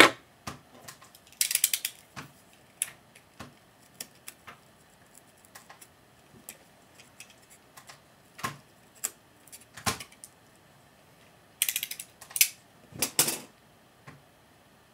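Snap-off utility knife cutting and scraping a small notch into a balsa-wood stick: a few short rasps among scattered light clicks and taps of small tools.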